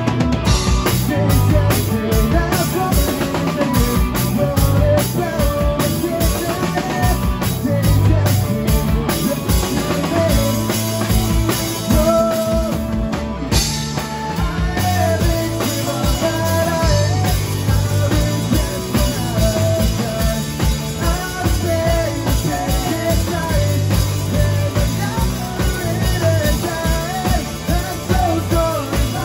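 Live rock band playing a song: drum kit and electric guitars through amplifiers, with a wavering melodic line over the beat in the second half.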